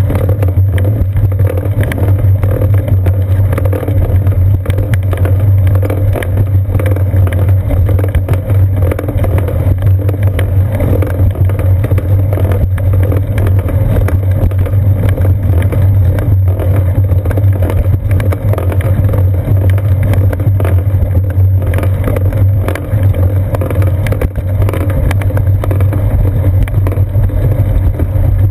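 Steady low rumble of a bicycle riding on a concrete path, picked up by a seat-post-mounted GoPro Hero 2: road vibration and wind on the camera, unbroken throughout.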